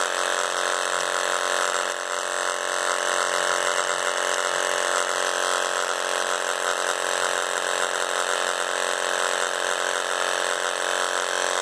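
Homemade vibrating seeder running: a steady electric buzz as it shakes seeds down its plastic trough.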